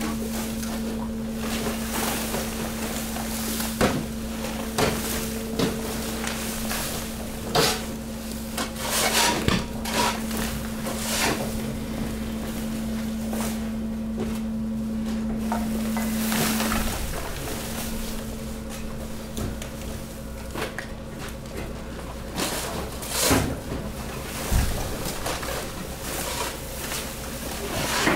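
Steady hum of the hydraulic garbage press's pump motor, which fades out about two thirds of the way through and returns near the end, under scattered knocks, thuds and plastic rustling as bags, cardboard and loose rubbish tumble into the press hopper.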